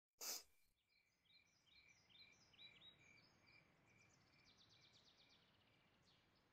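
A brief click near the start, then faint birdsong ambience from the episode's soundtrack: repeated rising chirps over a steady pulsed note, turning into a fast trill after about four seconds.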